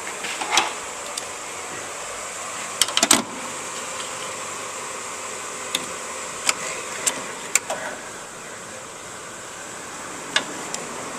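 Metal clicks and taps of a 12 mm socket on a wobble extension being worked onto a bolt: scattered single clicks, with a quick cluster about three seconds in, over a steady hiss.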